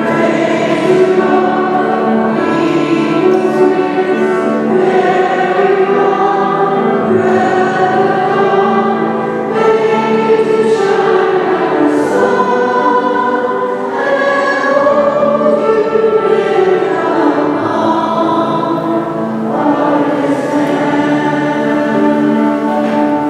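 A choir singing with long held notes in full chords.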